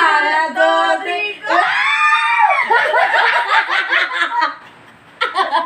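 Women shrieking and laughing together, with one high, drawn-out scream about two seconds in, as a player's face is pushed into a tray of flour.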